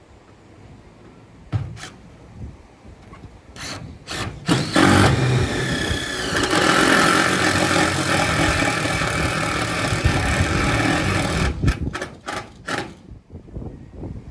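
Power drill driving a self-drilling screw into metal roofing sheet: a steady drilling run of about seven seconds starting about four seconds in, with short sharp knocks before and after it.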